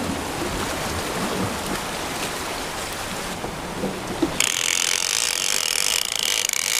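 Fishing reel's ratchet clicking rapidly as line is worked in, getting louder about four seconds in. Waves wash against the lava rocks underneath.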